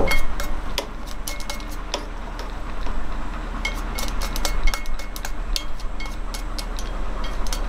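Chopsticks tapping and scraping against a metal sierra cup, an irregular run of light clicks, some with a short metallic ring, as the food is knocked out of the cup into a pot. A steady low hum runs underneath.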